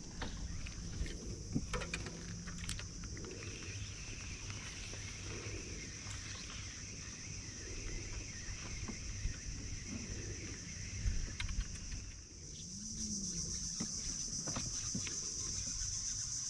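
Steady high insect drone from the mangroves over a low rumble of wind on the microphone, with a few sharp clicks in the first few seconds. The drone grows louder after a brief dip about twelve seconds in.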